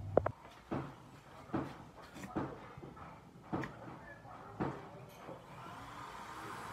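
Kitchen knife trimming bananas on a wooden chopping board: a sharp knock right at the start, then five short knocks about a second apart.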